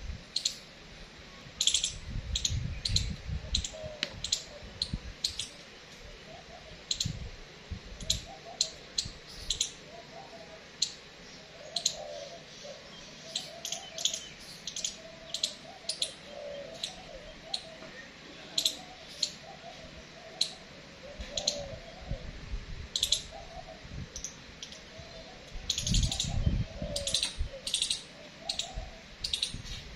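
Short, sharp chirps from small animals, scattered irregularly throughout, with softer wavering calls lower in pitch and a few low rumbling bursts, about two seconds in and again near the end.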